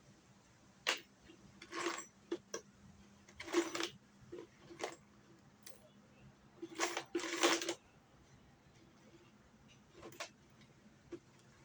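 Irregular knocks, clicks and short scraping noises from hands working on a wooden piece with tools, a few seconds apart, the longest two close together about seven seconds in.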